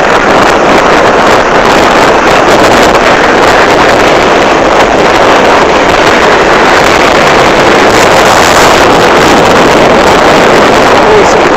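Steady, loud wind rushing over the microphone of a moving motorcycle, with the motorcycle's engine running underneath.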